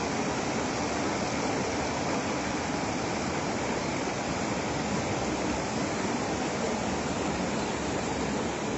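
Steady rushing of a river in flood.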